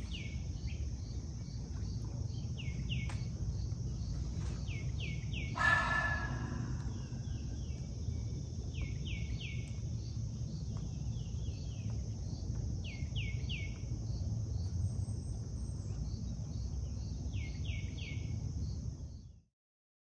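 Outdoor lakeside ambience: birds calling in short downward-sweeping chirps in twos and threes, over a steady high insect trill and a low steady rumble. There is a brief louder sound about six seconds in, and the sound cuts off just before the end.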